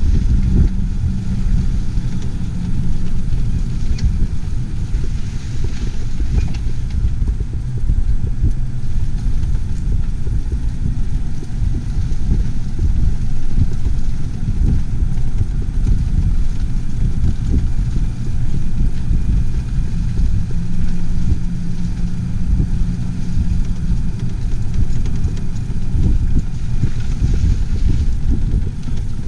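A motor vehicle on the move: steady, loud low-pitched engine and road noise.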